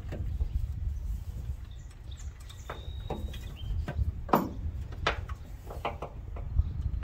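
Scattered metal clicks, clinks and short squeaks from a ratchet, extension and spark-plug socket being worked on the spark plugs of a Ford 289 V8, over a low steady rumble.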